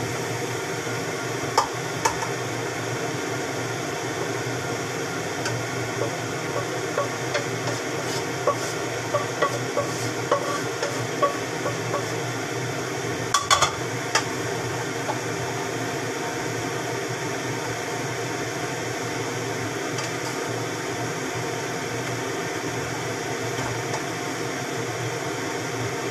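Wooden spatula stirring and scraping vegetables in a frying pan, with light clinks and taps against the pan and a louder clatter about halfway through. A steady hum runs underneath.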